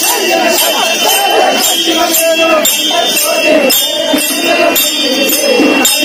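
Festival procession music: jingling bells or small cymbals beat out a steady rhythm of about two to three strikes a second, with voices singing and chanting over it.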